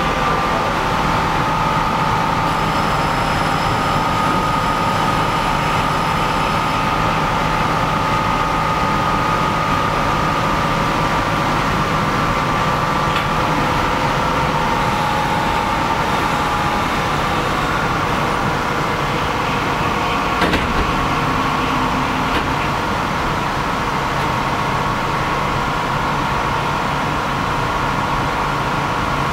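Steady hum and whine of a stopped electric train's onboard equipment, heard from inside the car with its door open. A light knock comes about twenty seconds in.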